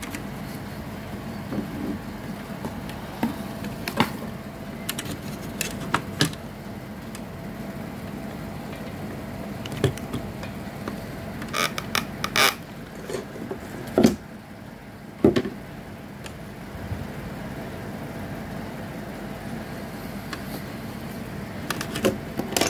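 Scattered clicks and knocks of hands handling the opened plastic body and wiring of a toy steam locomotive, over a steady low hum.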